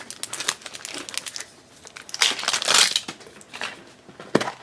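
Plastic packaging of a blind-box toy figure being handled and opened: crinkling and rustling with small clicks, loudest about two to three seconds in.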